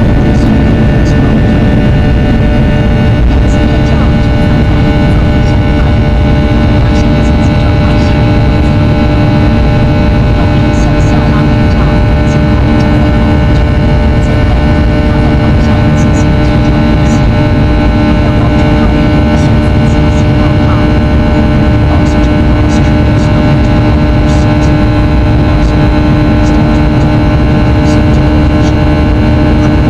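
Boeing 737-800's CFM56-7B turbofan engines at high thrust heard inside the cabin: a loud, steady rumble with a stack of steady whining tones.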